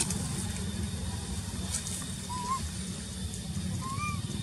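Two short wavering animal calls, about two and a half and four seconds in, over a steady low rumble of noise on the microphone.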